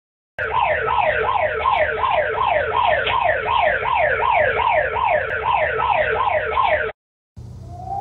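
Peru's emergency alert alarm: a loud siren tone sweeping down in pitch over and over, about three sweeps a second, which cuts off about a second before the end. Just before the end a different alarm starts, a steady tone that rises and then holds.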